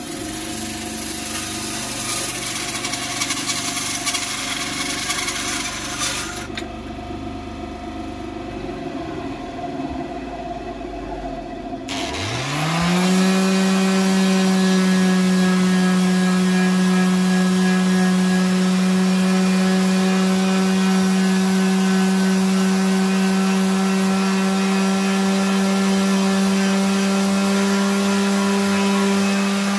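A bandsaw cuts through hardwood for about the first twelve seconds, the hissing cutting noise falling away about six seconds in. About twelve seconds in, a SKIL random orbital sander spins up and runs with a steady hum as it sands the wood.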